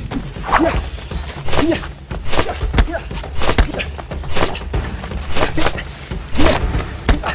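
Film fight sound effects: a quick, uneven run of over a dozen punch and kick impacts and whooshes.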